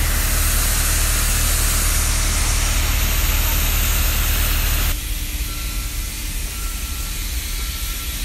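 Heavy machinery running steadily, a deep engine hum with a loud hiss over it. About five seconds in the sound drops sharply to a quieter steady hum with a faint, on-and-off high whistle.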